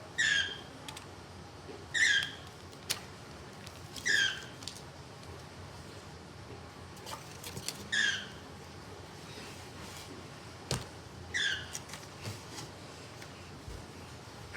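A small animal's high, squeaky chirps: about five short falling calls a couple of seconds apart, with a few faint clicks and taps between them.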